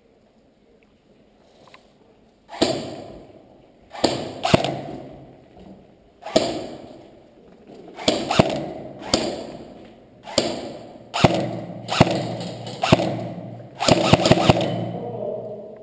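Airsoft gunfire: a dozen or so single sharp cracks, irregularly spaced and some in quick pairs or triples near the end, each with a long echo off bare concrete walls. They begin a couple of seconds in.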